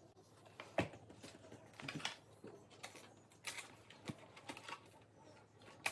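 Faint, scattered light clicks and taps at irregular intervals from hands handling and fitting foam-board model airplane parts, with a hot glue gun put down on the table.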